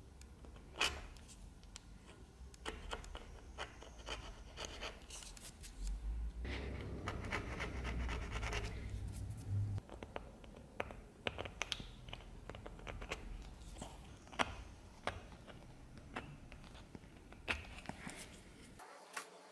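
Small hand-held engraving blade scratching and scraping a line into an aluminium sword handle: scattered short scratches and clicks, with a denser run of scraping strokes in the middle.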